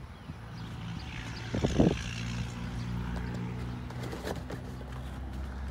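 A steady low engine drone in the background, swelling louder from about a second in, with a few short knocks and rustles of something being handled.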